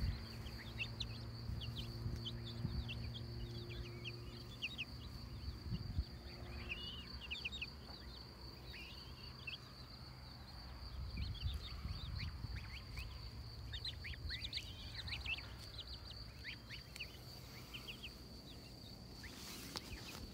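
Young poultry peeping: many short, high peeps in quick runs, over a steady high-pitched whine and low rustling.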